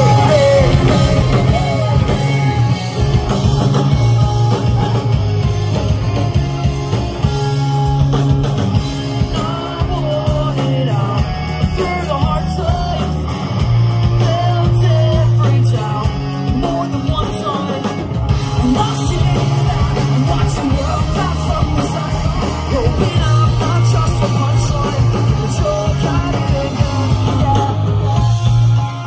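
Pop-punk band playing live: sung vocals over electric guitars, bass and drums, loud and steady, heard from within the crowd.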